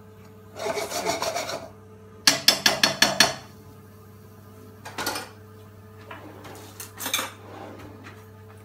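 A metal spoon scraping curry paste around a hot wok, then rapped about eight times in quick succession against the pan. A couple of lighter clatters follow later.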